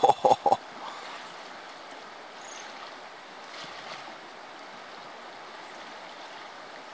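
River current flowing steadily over a shallow riffle. A few short, loud bursts in the first half second.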